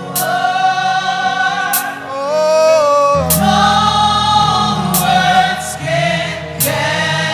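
Gospel choir singing a slow worship song in held, sustained notes over a live band, with a drum or cymbal hit about every second and a half; a deep bass comes in about three seconds in.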